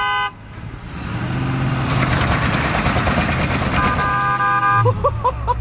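The last of a string of short vehicle-horn honks, then truck engines revving up under load and tyres spinning on dirt during a tug-of-war pull, the noise building for a couple of seconds. A horn sounds steadily for about a second near the end.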